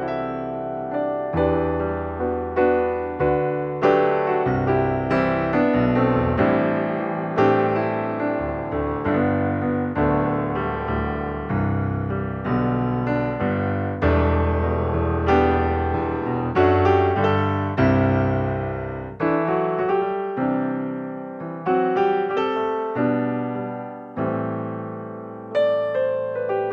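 Background piano music: a slow melody of struck notes over sustained bass notes.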